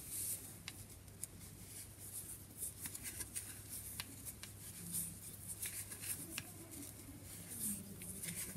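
Faint, irregular clicks and scratchy rustling of 10 mm wooden knitting needles working chunky wool yarn as stitches are purled by hand.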